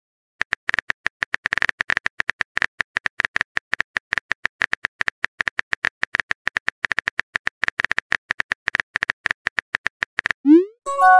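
Phone keyboard typing sound effect: rapid, irregular key-tap clicks, several a second, that stop about ten seconds in. They are followed by a short rising swoosh and a brief chime as the typed message is posted.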